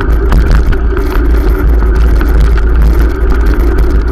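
Wind buffeting the microphone of a bicycle-mounted camera while riding, a heavy low rumble, with scattered small knocks and rattles from the bike and mount over the footpath.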